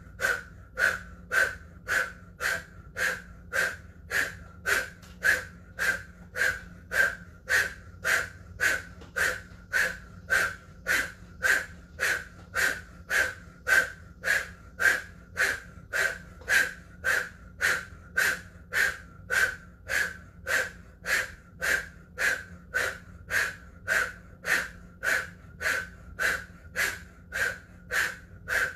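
Forceful rhythmic breathing through an O-shaped mouth, about one and a half sharp breaths a second in an even, unbroken rhythm: kundalini breath of fire.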